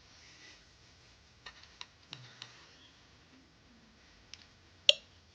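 A few light clicks and taps scattered through the quiet, with one sharper, briefly ringing click near the end.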